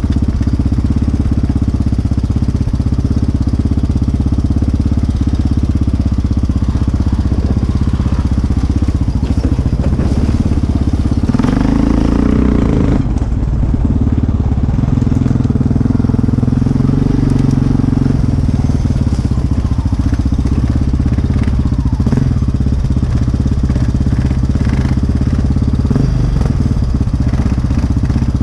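ATV engine running close by while riding a wooded trail, steady throughout, with a harder rev about twelve seconds in.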